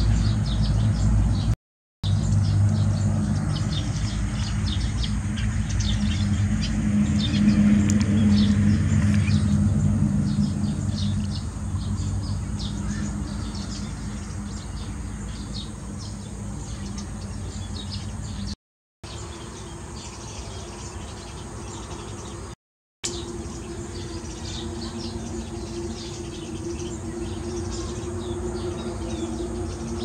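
Eurasian tree sparrows chirping: many short, quick chirps throughout, over a steady low hum. The sound drops out briefly three times.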